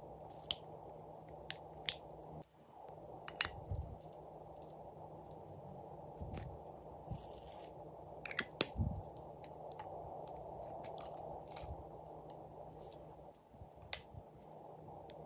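Sharp clicks and light taps of small plastic bottles and snap-on caps being opened, closed and handled, scattered irregularly with the loudest about two-thirds of the way through, along with sprinkles being shaken out, over a steady low hiss.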